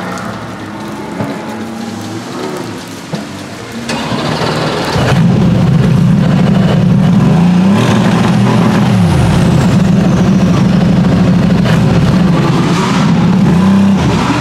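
Aston Martin Vantage GT3's twin-turbo V8 running while stationary. It is quieter for the first few seconds, then much louder from about five seconds in, with the revs rising and falling in a few blips.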